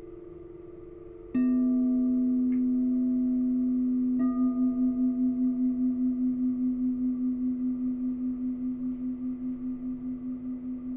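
Frosted crystal singing bowls struck with a mallet. A higher bowl's tone fades out, then about a second and a half in a lower bowl is struck and rings out strongly. It is struck again about four seconds in, and its tone pulses steadily as it slowly fades.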